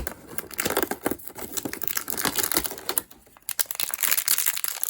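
Small blind bag crinkling as it is handled and torn open, a dense crackle that pauses briefly about three seconds in and then resumes.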